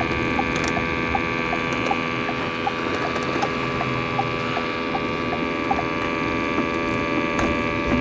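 Steady hum of the Ford Edge's cabin while driving with the rear hatch open, several held tones over a low rumble, with faint light ticks about twice a second.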